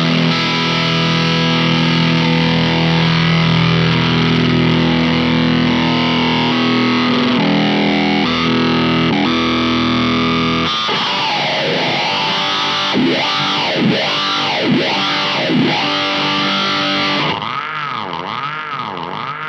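Distorted electric guitar played through the Intensive Care Audio Vena Cava Filter pedal, holding loud sustained chords. About ten seconds in the pedal's modulated filter comes in, sweeping the tone up and down with a swooshing sound as the knobs are turned. Near the end it settles into a steady wobble a little faster than once a second.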